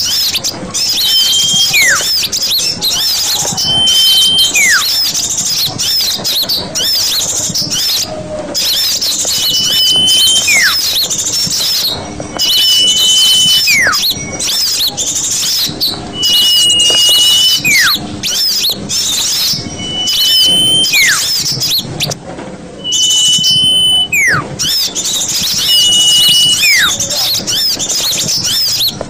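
Bird-lure recording of a chorus of small birds, with dense, rapid high chirping and twittering throughout. About every three seconds a short flat whistle is followed by a falling whistle, repeating like a loop.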